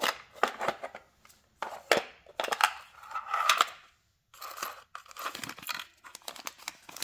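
Plastic packaging crinkling and rustling in bursts, with small clicks, as sewing machine accessories are handled.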